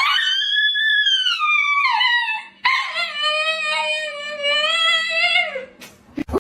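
A dog howling: two long howls, the first rising and then sliding down, the second lower and steadier, dropping off at its end.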